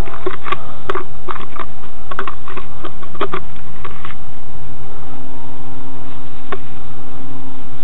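Gloved hands working wet cement mix in a plastic bucket: a run of small clicks and crackles in the first four seconds, then only the odd click over a steady low hum.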